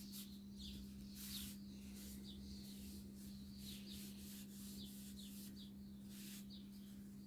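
Oil finish being rubbed by hand onto walnut: faint repeated wiping strokes with small squeaks. A steady low electrical hum runs underneath.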